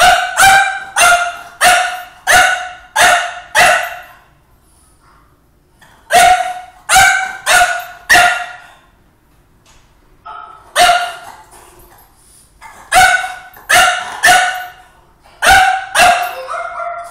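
French Bulldog barking loudly in quick volleys of sharp, pitched barks, with pauses of about two seconds between the volleys.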